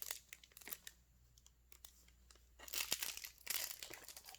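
Trading-card pack wrappers and cards crinkling and rustling as they are handled: a few light clicks at first, then louder crinkling from a little past halfway.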